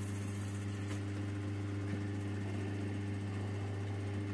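Capstan lathe running with a steady motor hum. For about the first second a high-pitched squeal of a tool cutting the brass bar is heard, then it stops.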